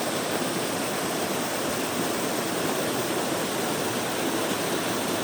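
Waterfall: water pouring and rushing steadily.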